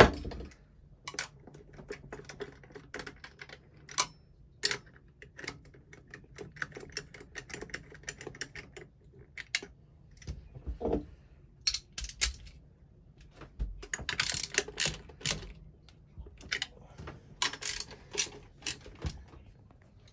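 Irregular clicks and light knocks of hand tools and small metal and plastic engine parts being handled, with denser runs of quick clicks about fourteen seconds in and again near the end, over a faint steady low hum.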